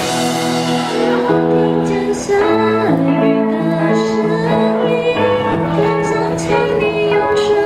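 A song playing: a sung melody of held notes over instrumental accompaniment.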